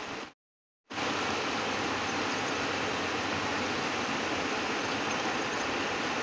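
Steady rush of a fast-flowing river, an even noise with no distinct events. The sound drops out to dead silence for about half a second just after the start, then resumes a little louder.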